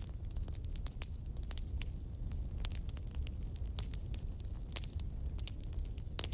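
Irregular sharp clicks and crackles over a steady low rumble.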